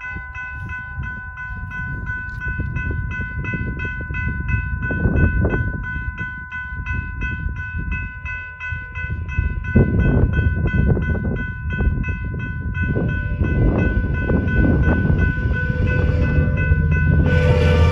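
A railroad crossing warning bell ringing in rapid, steady repeated strokes while the low rumble of an approaching train grows louder. Near the end the train arrives loudly and its horn begins to sound.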